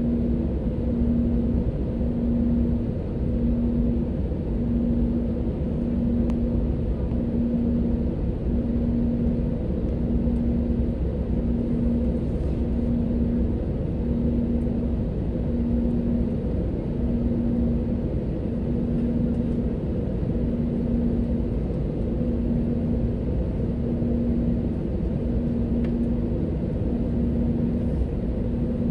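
Inside the cabin of an Airbus A320-family airliner taxiing: a steady low engine and rolling rumble, with a hum that pulses on and off about once a second throughout.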